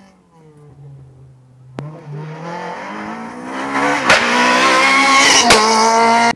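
Rally car engine approaching hard, faint and low at first, then climbing in pitch and growing loud as it accelerates closer. Two sharp cracks come about four and five and a half seconds in, and the sound cuts off abruptly at the end.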